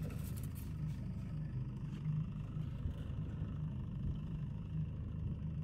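Boat engine running steadily, a constant low drone.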